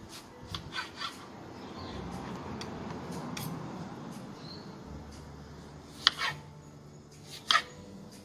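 Kitchen knife cutting a tomato on a wooden chopping board. A few light taps are followed by a stretch of soft rasping as the blade saws through the tomato. In the last couple of seconds come several sharp, loud knocks as the blade strikes the board.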